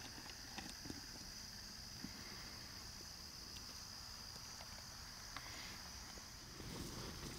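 Insect chorus in a field, a steady high-pitched trill like crickets, with a few faint clicks and some low rustling near the end.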